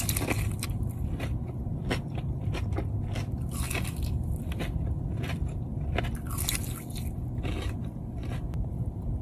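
Close-miked eating of crispy fried chicken wings: crunchy bites and wet chewing, with a few louder crunches spread through.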